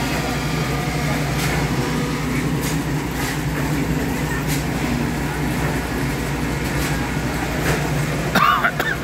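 Portable concrete mixer running steadily, its engine making a continuous low drone as the drum turns, with scattered clinks. A brief, louder sound cuts in near the end.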